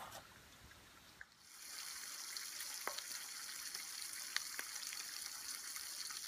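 Bacon sizzling in a frying pan on a camp stove: a steady hiss with scattered small pops, starting about a second in.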